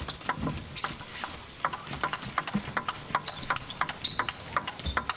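Fast table tennis rally: a plastic ball clicks in quick, irregular succession as it strikes the rackets and the table, with a few short high squeaks among the hits.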